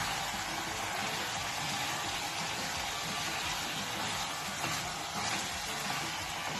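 Chicken pieces with onion and carrot frying in oil in a pot: a steady sizzling hiss as they are stirred.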